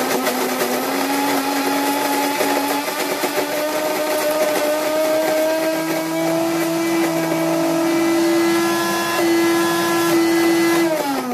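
DeLonghi KG79 electric burr coffee grinder running on its finest setting, the motor whine creeping slowly up in pitch as it works through the last few beans; the owner hears it as a slight strain, a stranger noise than usual, from the hopper running nearly empty. At the very end it shuts off and the whine falls away as the motor spins down.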